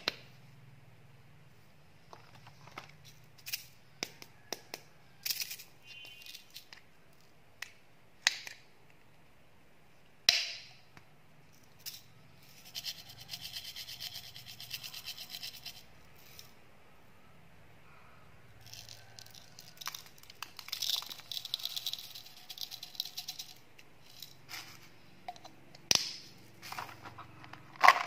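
Hands handling and opening small plastic candy containers: scattered taps and clicks of hard plastic, with two longer stretches of quick rattling and scraping, one about midway and one a little after.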